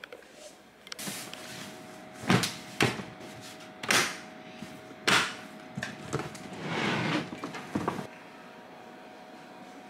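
A hard-shell suitcase with an aluminium frame being closed and handled: several loud knocks and clunks from about two seconds in, a longer noisy stretch around seven seconds, then a few small clicks.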